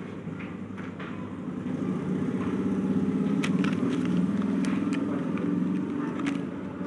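A motor vehicle engine running, growing louder through the middle and easing off again, with a few sharp clicks and rustles over it.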